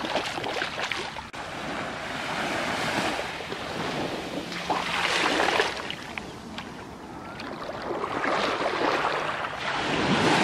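Small sea waves washing up the sand at the water's edge and drawing back, the surf swelling and fading about three times.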